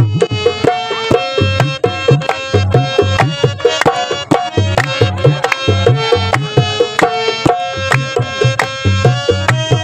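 Tabla played in a fast, steady rhythm, its bass drum strokes bending in pitch, under a held harmonium melody: the instrumental opening of a qawwali before the singing starts.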